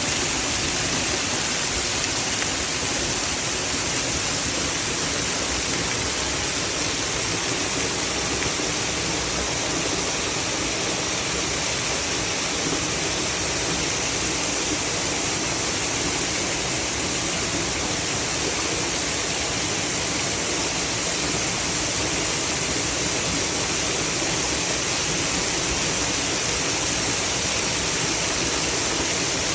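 A waterfall's falling water making a steady, even rushing noise that does not change.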